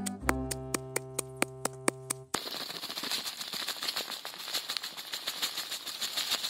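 Background music with a steady ticking beat, cut off after about two seconds by the hiss of salt being poured onto crushed red chillies in a wooden mortar: a dense crackle of falling grains.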